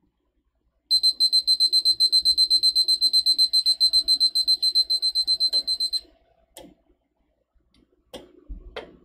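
Countdown timer alarm on an interactive classroom display going off at zero: a rapid run of high, even beeps, about nine a second, cut off suddenly about six seconds in. A few light knocks and taps follow near the end.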